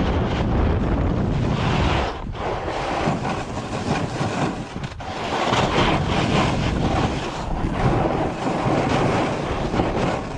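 A Telos DST 158 splitboard scraping over hard, wind-crusted snow at speed, a loud rasp mixed with wind rushing over the microphone. It dips briefly about two seconds in and again around five seconds.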